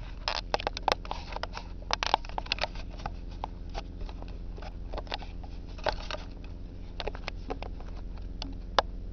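Irregular clicks, taps and rustles of a camera being handled and repositioned close to its microphone, busiest in the first few seconds, over a steady low electrical hum.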